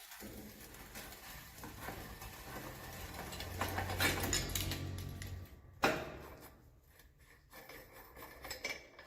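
Metal tool and bicycle bottom bracket parts clinking and scraping as they are worked loose by hand, with a sharp metallic knock about six seconds in.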